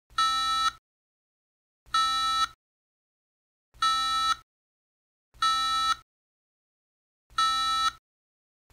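Micro:bit-driven buzzer giving five short buzzy beeps, each about half a second long and a second and a half to two seconds apart. Each beep marks the metal eye touching the wire of a buzzwire steady-hand game, which the Micro:bit counts as an error.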